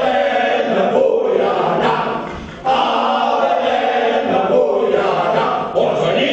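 A group of voices singing together as a choir, in phrases with short breaks about two and a half seconds and about six seconds in.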